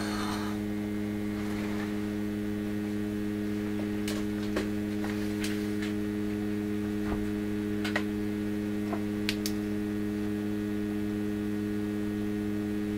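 Steady electrical mains hum with several evenly spaced overtones from the powered tube radio and bench test gear. A few faint clicks and knocks come between about four and nine seconds in, as the chassis is handled.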